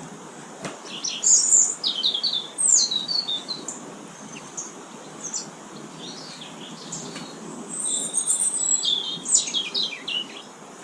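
Small garden birds chirping and twittering in short, high-pitched bursts, busiest about a second in and again near the end, over a faint low background noise.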